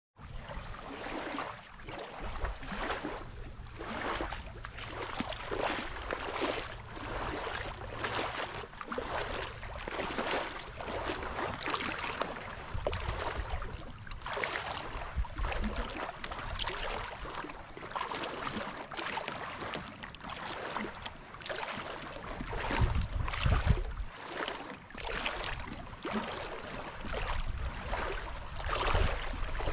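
Small waves lapping on a sandy shore: a steady run of soft splashes. Wind rumbles on the microphone in gusts, loudest about three-quarters of the way in.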